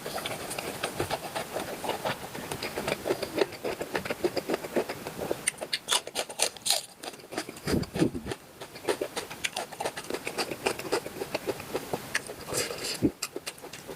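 Close-miked chewing of cooked octopus: a dense run of quick clicks and smacks from the mouth, with a short lull about eight seconds in.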